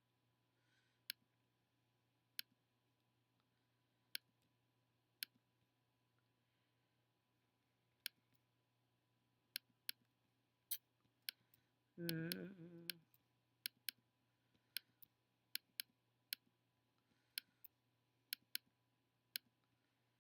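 Scattered single computer mouse clicks during photo editing: sharp, irregular, a second or more apart at first and coming faster in the second half, over near silence with a faint steady low hum.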